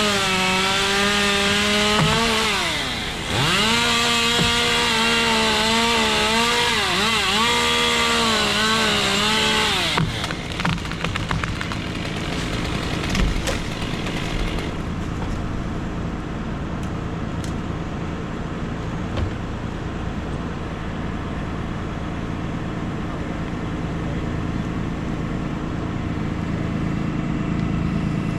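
Chainsaw running and cutting through a limb for about ten seconds, its pitch dipping and recovering under load, then stopping. A few sharp cracks and knocks follow, then a steady low engine hum.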